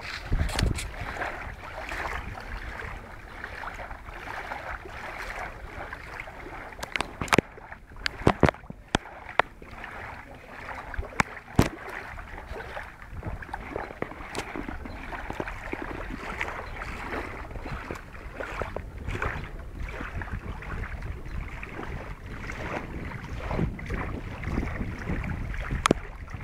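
Wind buffeting the microphone, a steady rough rumble, with scattered sharp clicks, most of them a third of the way in.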